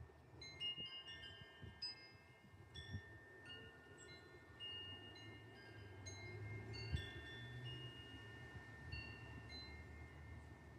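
Metal wind chimes tinkling in the wind, many high ringing tones struck irregularly and overlapping, over a low gusty rumble of wind on the microphone.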